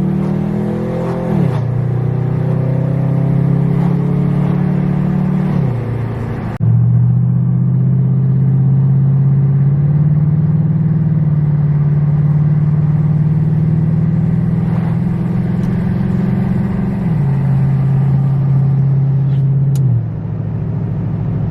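Chevy Caprice PPV's 6.0-litre L77 V8 with a resonator-delete exhaust and Dynomax bullet mufflers, heard from inside the cabin as the car accelerates. Its pitch climbs and drops at each upshift, then settles into a steady drone at cruise, with two more steps down in pitch near the end.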